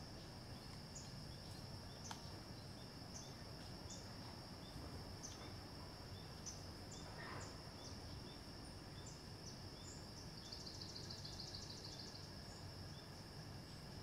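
Crickets and other insects calling in the woods: a steady high trill with a shorter chirp repeating every half second or so. About ten seconds in, a fast pulsing insect call joins for about two seconds.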